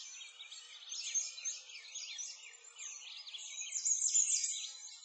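Birds chirping: a dense chorus of short, quick chirps overlapping throughout, a little louder about four seconds in.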